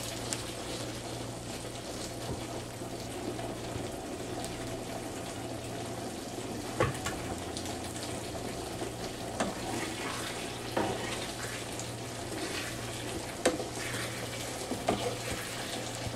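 Tofu in cream sauce simmering in a frying pan over a gas burner, a steady hiss, with a few sharp clicks of a spatula against the pan.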